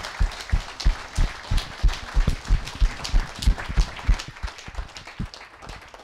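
Audience applause: many hands clapping, with loud claps close by at about three a second. The applause thins out toward the end.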